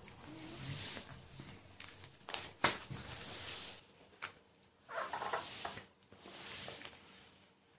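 Clear plastic binder pocket pages rustling and crinkling as they are handled and turned, with a few sharp clicks and taps. The loudest click comes a little under three seconds in.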